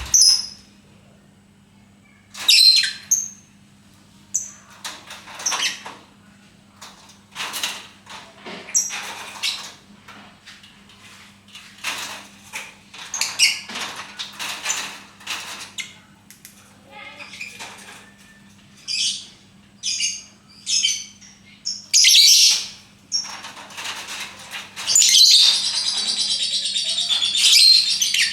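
Lovebird giving scattered short, sharp chirps, then, about 25 seconds in, breaking into a continuous rapid chattering song of the kind lovebird keepers call ngekek. A steady low hum runs underneath.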